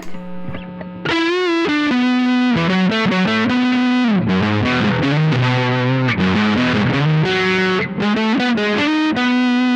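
Distorted electric guitar playing a single-note lead line with held notes, vibrato and bends, on the Lollar Royal T neck pickup alone of a Squier Paranormal Offset Telecaster, driven by a Bookworm Effects Diving Belles distortion pedal.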